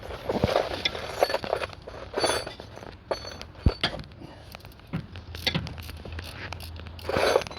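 Metal clinks and knocks of a wrench working a pulley bolt loose on a car engine, scattered irregularly, with one sharp knock about three and a half seconds in.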